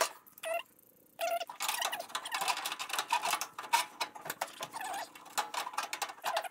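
Dense run of small clicks, rattles and short squeaks, starting about a second in, as a test-fitted steering wheel and column are gripped and turned; the column is only temporarily held in place with a shim and washer.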